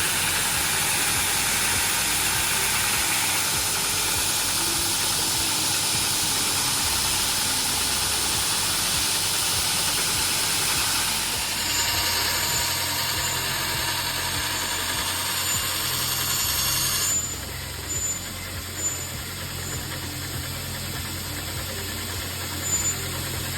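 Steady hiss and rush of workshop machinery running. The sound changes abruptly about halfway through, then drops quieter a few seconds later, leaving a low steady hum.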